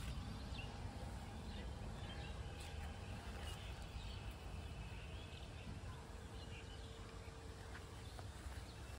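Faint outdoor ambience: a steady low wind rumble with a few faint bird chirps.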